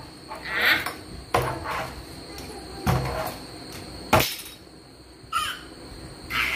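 A baby's short, harsh squeals and shouts, with three sharp knocks of a small plastic container against a plastic chair.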